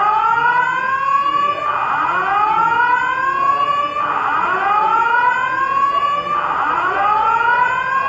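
Building fire alarm sounding its evacuation signal: a loud whoop that rises in pitch and repeats about every two and a quarter seconds.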